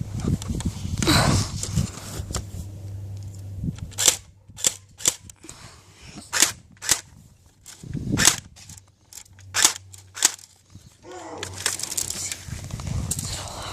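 Airsoft guns firing single sharp shots, spaced half a second to a second or more apart, mostly in the middle stretch.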